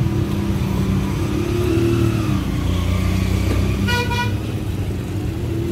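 A motor vehicle engine running with a steady low rumble, and one short horn beep about four seconds in.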